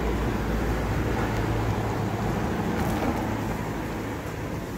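Steady low rumble under a constant background hiss.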